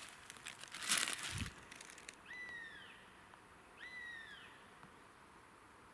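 A bird of prey calls twice, two drawn-out cries that slide downward in pitch, about a second and a half apart. Just before them, about a second in, comes a brief louder rustle of the crumpled foil balloon being handled.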